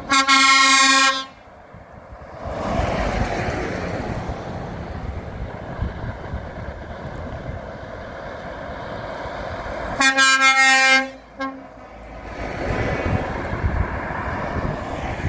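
Truck air horns sounding in two steady-pitched blasts of about a second each, one at the start and one about ten seconds in, with the engines and tyres of passing trucks and cars running between them.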